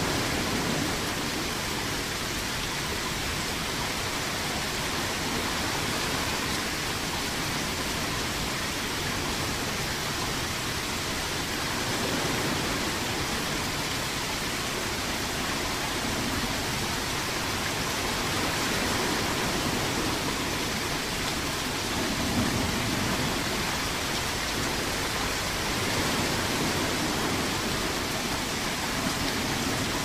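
Ocean waves washing onto shore in a continuous hiss, swelling gently every several seconds.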